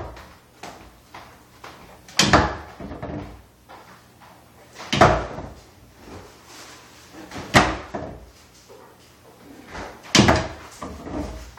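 A flipped bottle landing with a thud, four times about every two and a half seconds, each landing followed by a few smaller knocks.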